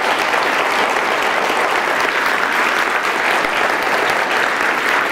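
Audience applauding steadily, the even clatter of many hands clapping at once.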